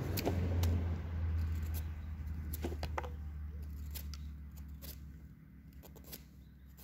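Curved grafting knife shaving a green walnut scion: a scatter of short cuts and scrapes of the blade on the wood. A low hum sits under the first few seconds and fades away.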